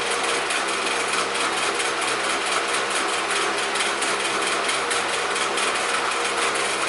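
A small machine running steadily in the background: an even hiss with a fast, regular rattle and a low steady hum.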